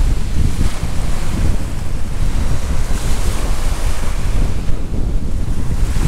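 Wind buffeting the microphone with a loud, uneven low rumble, over the steady wash of sea waves on a beach.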